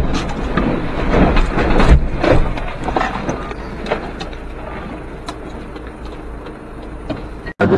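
Road crash: a loud bang as a small truck ahead rolls over, then more heavy knocks and scraping about two seconds in and scattered clattering of debris on the road, over the steady engine and road rumble. The rumble goes on after the clattering dies away, and the sound cuts off suddenly near the end.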